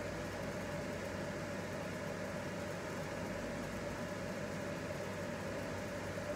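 Steady room tone: an even low hum with hiss and no distinct events.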